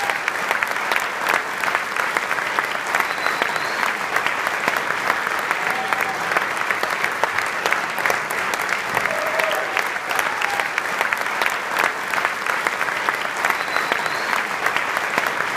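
A large banquet-hall audience applauding steadily, a dense continuous patter of many hands clapping.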